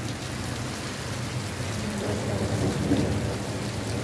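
Heavy rain falling steadily, with a low rumble underneath.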